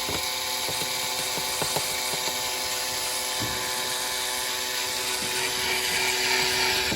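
Power drill running steadily under load, drilling a hole while the intake heat shield is mounted, then stopping near the end.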